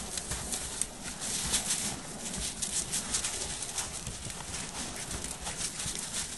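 Crunching footsteps in snow: a colt's hooves as it moves around at a trot, along with a man's boots. The steps come irregularly and run close together.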